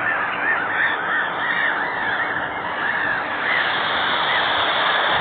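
Gulls calling: many short, arched calls in quick succession, thinning out near the end, over a steady noisy rush of sea and air.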